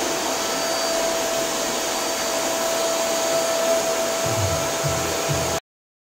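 Inalsa Spruce 1200-watt canister vacuum cleaner running while it vacuums a tiled floor: a steady rushing noise with a constant whine. It cuts off abruptly near the end.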